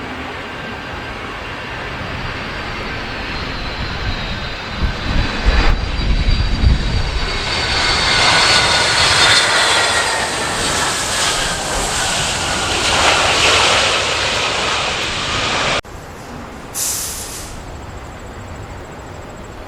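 Jet airliner passing close by, its engine whine sliding down in pitch as it goes past and swelling into a loud roar. Wind buffets the microphone partway through. The sound cuts off abruptly near the end, followed by a brief hiss.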